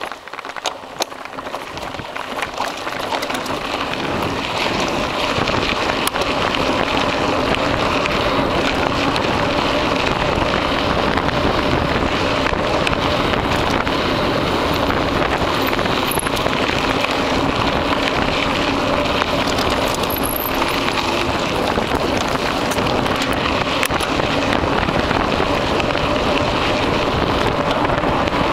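Wind buffeting the microphone, mixed with mountain-bike tyres rolling over a dirt trail. A few clicks come at the start, then the noise builds over the first four seconds as the bike gathers speed and holds steady after that.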